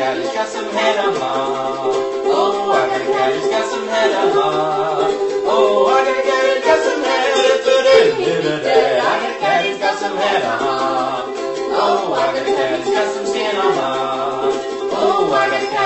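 A comic novelty song: voices singing a repetitive, chant-like verse over a plucked-string accompaniment.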